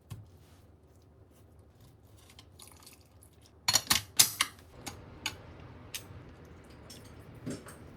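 A series of light, sharp clicks and taps of small hard objects, with a quick cluster of louder ones about four seconds in and a few single taps after.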